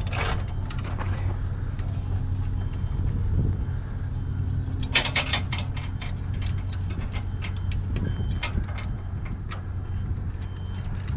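A vehicle engine running steadily, with scattered metal clanks and rattles and a cluster of knocks about five seconds in.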